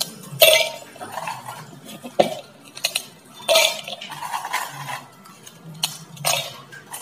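Oreo biscuits snapped by hand, the pieces dropping and clinking into a stainless-steel mixer-grinder jar; a handful of sharp crackles and clinks spread through, with quieter handling noise between.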